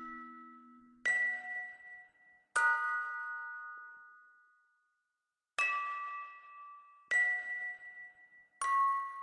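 Music box arrangement playing slowly: five plucked chords, each starting sharply and ringing out to fade, with short gaps between them.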